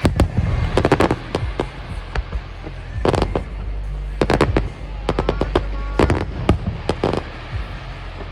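Aerial fireworks shells bursting in clusters of sharp, rapid bangs over a steady low rumble.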